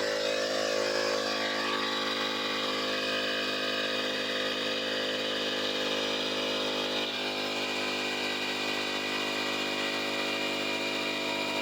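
Ryobi cordless compressor running steadily as it pumps up a tire, a steady motor-and-pump drone with an even set of tones, its pump fitted with replacement bearings. It cuts off abruptly near the end, shutting off on reaching the preset pressure.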